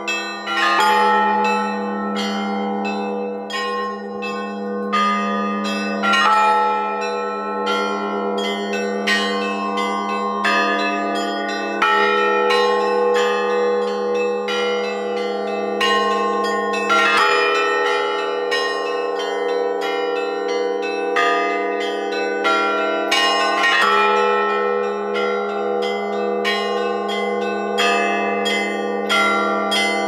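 Russian Orthodox church bell ringing (zvon): a ringer pulls the clapper ropes of several fixed bells, quick strikes of the small high bells over the steady hum of the larger ones. A heavier stroke lands about every five or six seconds.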